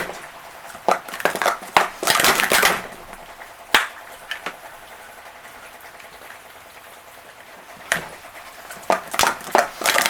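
Plastic sport-stacking cups clattering as they are quickly stacked up and brought down, in short dense bursts of clicks with pauses between, and single clicks in the pauses.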